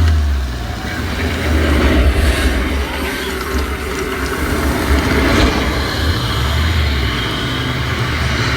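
Tour boat's motor rumbling steadily under a loud, continuous rushing noise from the ride's canyon show effects, with brief surges about two seconds in and again past the middle.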